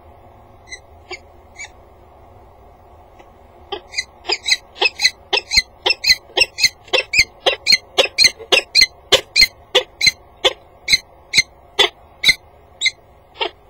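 Female peregrine falcon calling: a few short calls, then a long run of loud, sharp, repeated calls at about three a second, ending with a couple of spaced-out calls.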